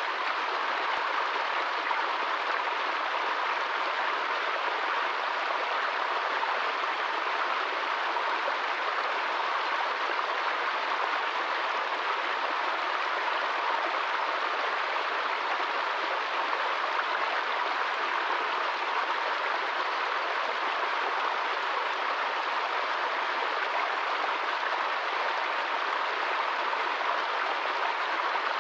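Small stream running over rocks in a small cascade: a steady, unbroken rush of water.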